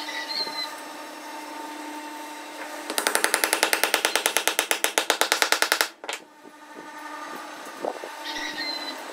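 Hammer blows in quick succession, about seven a second for roughly three seconds, driving a wedged wooden tenon down into its mortise; the tapping stops abruptly. A steady low hum runs under it.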